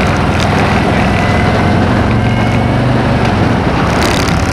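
A motor vehicle engine running steadily at low town speed, with a constant rush of road and wind noise.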